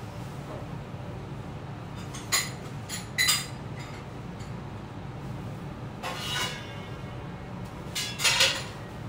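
Dishes and metal utensils clinking and clattering: two sharp clinks about two and three seconds in, then two longer ringing clatters around six and eight seconds in, over a steady low hum.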